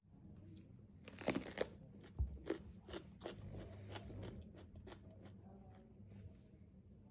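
Raw green bell pepper being bitten into and chewed: a run of faint, crisp crunches starting about a second in, thinning out after a few seconds.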